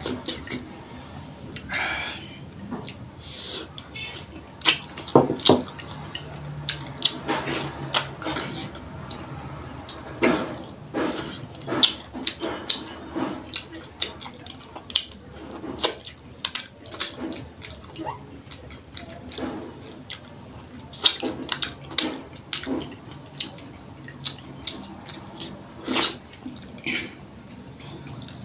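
Close-up wet eating sounds: irregular sharp lip smacks and squelchy chewing as soft dough and fish in sauce are eaten by hand.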